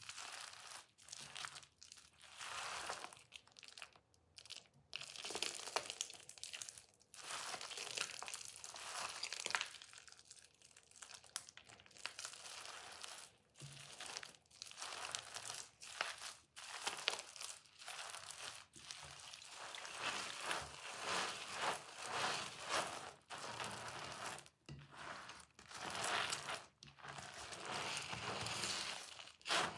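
Soaked white soap being crushed and squished by hand onto a sponge, and the lathered sponge squeezed: wet crunching and crackling of soft soap and foam. It comes in irregular stretches broken by brief pauses.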